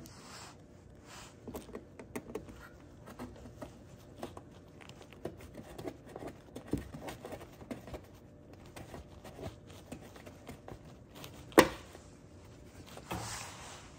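Hands working a felt wheel-well liner around a plastic mud flap: scratchy rustling, light scrapes and small taps. Late on comes one sharp click, the loudest sound.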